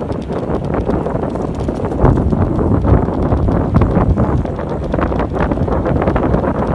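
Wind rushing over the microphone of a camera mounted on a moving road bike, with tyre noise on the pavement and many irregular knocks and clatters as the bike rolls over bumps.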